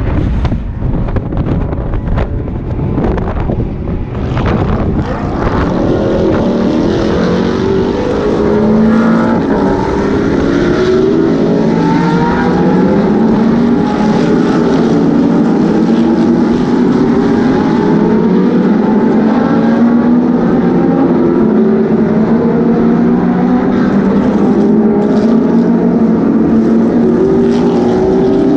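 A pack of historic endurance race cars running together, many engines at once with overlapping, rising pitches as they accelerate, growing louder over the first several seconds as the field approaches. Wind buffets the microphone at the start.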